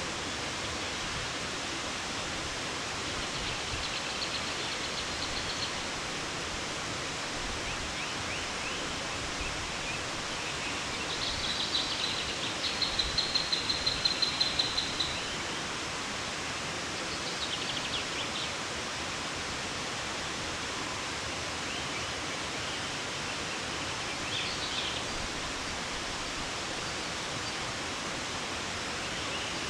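Steady rushing of a 90-foot waterfall cascading down a staircase of rocks, with a bird singing short high trilled phrases over it; the loudest, a rapid trill, comes about twelve seconds in.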